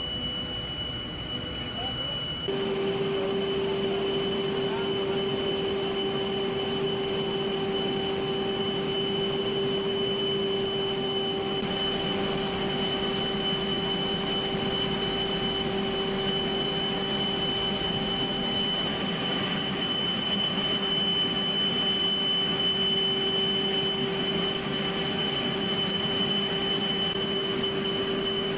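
Steady high-pitched jet turbine whine over a low hum, from aircraft engines or an auxiliary power unit running on the ground. It sets in abruptly about two and a half seconds in and then holds unchanged.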